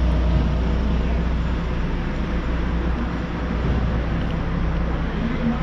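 Steady low mechanical rumble with a broad hiss over it, easing off a little after the first couple of seconds.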